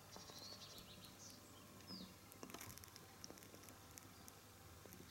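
Faint birdsong: a few short high chirps and curved whistles, most of them in the first two seconds, over a quiet background.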